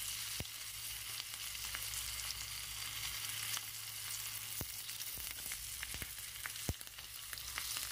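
Stuffed green chillies shallow-frying in mustard oil in an open pan, with a steady sizzle. A few light clicks come from the tongs touching the pan as the chillies are turned.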